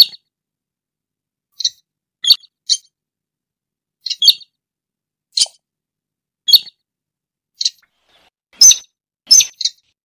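Slaty-breasted rail (sintar) calling: short, sharp, high-pitched notes, about one a second and sometimes in quick pairs, with the loudest notes near the end.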